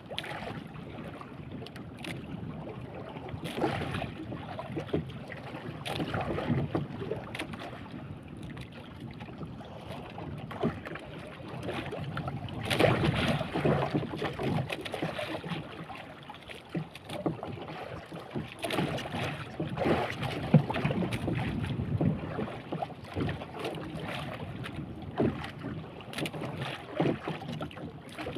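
Sea water slapping and splashing irregularly against the hull of a small wooden fishing boat on choppy open water, with wind on the microphone.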